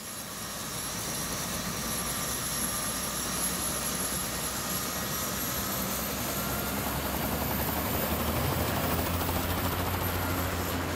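Steady whir of radio-controlled models' electric motors, with a thin high whine that slowly rises in pitch and drops back near the end, and a low hum that grows over the second half.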